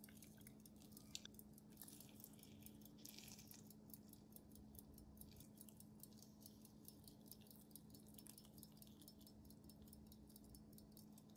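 Near silence: room tone with a faint steady hum, faint rapid ticking and one small click about a second in.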